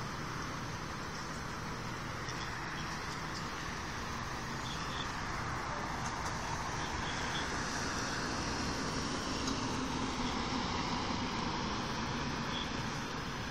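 Steady road traffic noise with no clear single event. It swells slightly between about six and eleven seconds in, as a vehicle passes.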